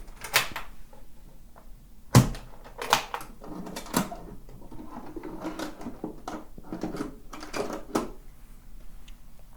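The case of a 1920s Orphola suitcase portable phonograph being opened: sharp clicks of its catches and clunks of the lid in the first four seconds, then softer knocks and rattles as the case is handled.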